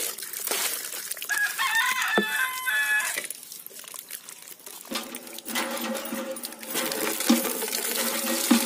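Water splashing as a hand swishes chopped pumpkin pieces in a pot of water, with a rooster crowing over it about a second and a half in. In the second half, lower chicken calls continue with more splashing until the sound cuts off.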